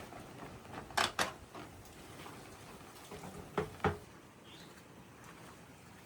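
Light knocks in two quick pairs, about two and a half seconds apart, over faint background.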